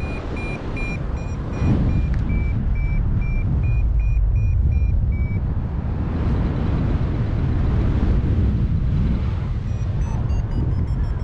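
Paragliding variometer beeping in a run of short tones that shift slightly in pitch, signalling that the glider is climbing in lift, over heavy wind noise on the microphone. The beeping stops about halfway through and starts again near the end.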